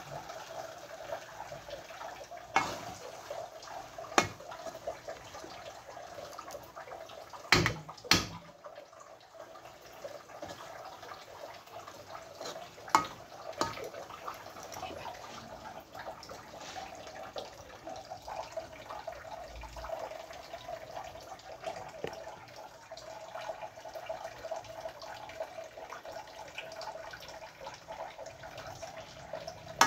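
Thick biko (sweet sticky rice) mixture bubbling and being stirred in a metal wok with a metal spoon, a wet, steady churning with a few sharp clinks of the spoon against the pan.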